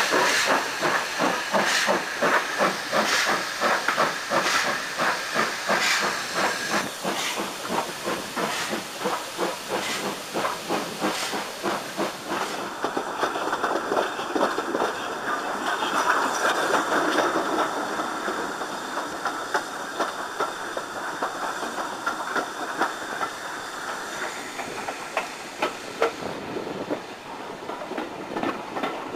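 Steam locomotive working a train, heard from an open carriage window: exhaust beats about four a second over a constant hiss. After about twelve seconds the beats soften into a steadier hiss, with faint beats still running under it.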